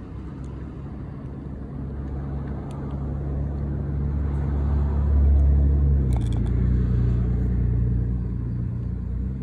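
A car engine running close by. It grows louder toward the middle, its hum drops a step in pitch a little past halfway, then eases off near the end.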